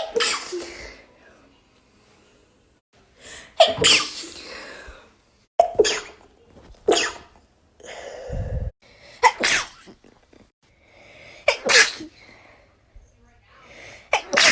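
A person sneezing about six times in separate, sharp, loud bursts, some led in by a short breathy intake. There is a brief low rumble about halfway through.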